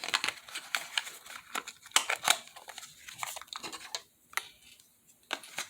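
Hands handling packaging: a quick run of small clicks and crinkling, then a pause and a couple of single clicks near the end.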